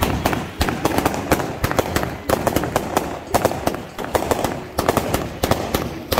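Consumer fireworks going off in quick succession: sharp bangs and crackles of aerial shells bursting overhead, several a second at irregular spacing, over the steady hiss of ground fountains.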